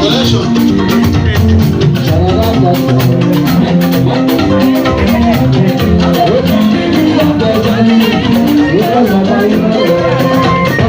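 Live band music with drums keeping a steady, fast beat under pitched instrument lines.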